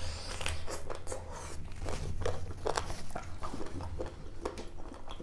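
A person chewing and biting food close to the microphone, with many short, irregular crunches.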